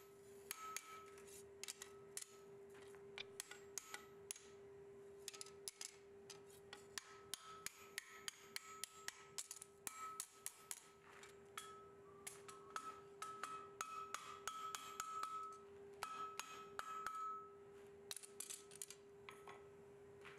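Blacksmith's hammer striking a red-hot steel ring on the anvil, many light blows in quick, irregular succession with short pauses, bending the hot ring to bring its ends together. A steady hum runs underneath.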